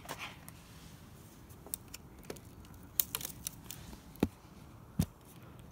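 Scattered sharp clicks and taps over a faint steady hiss, the two loudest about four and five seconds in.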